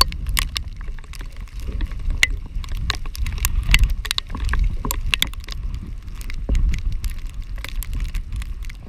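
Strong wind buffeting the microphone in a small aluminum boat on choppy lake water, with frequent sharp, irregular ticks and slaps of waves and spray.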